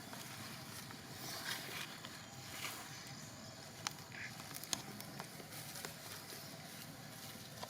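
Quiet outdoor background hiss broken by a few sharp ticks and brief faint high calls.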